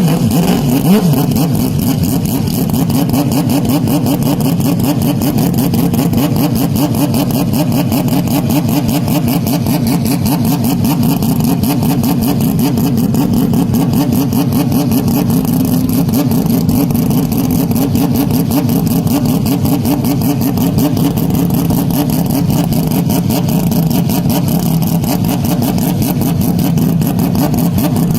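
Racing car engine running loud and steady at a nearly constant pitch for the whole stretch.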